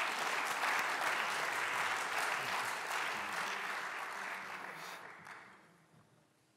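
Audience applauding, dying away over the last second or two.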